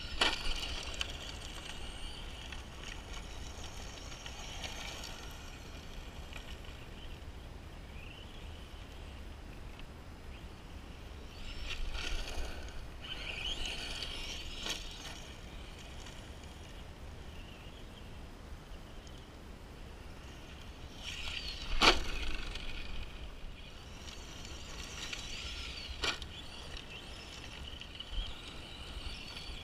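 Electric motor and tyres of a brushed Arrma Senton 4x4 RC short course truck running on 2S lipo over loose gravel, with a steady low rumble underneath. Sharp knocks as the truck lands off jumps, just after the start and loudest about 22 seconds in, with a smaller one a few seconds later.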